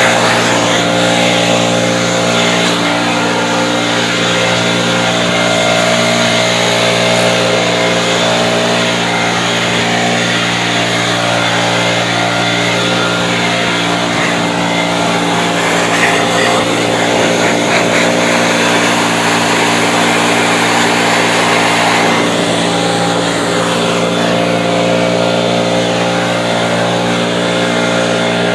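Snow-clearing blower running steadily at a constant speed, its motor note holding an even pitch throughout.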